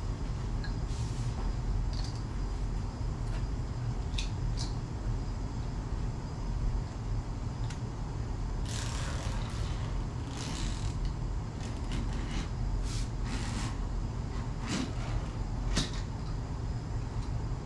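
Utility knife drawn along a wooden straight edge, slicing a corrugated plastic (Coroplast) sheet in scraping strokes, with knocks as the board and sheet shift. The strokes cluster about nine to eleven seconds in and again near the end, over a steady low hum.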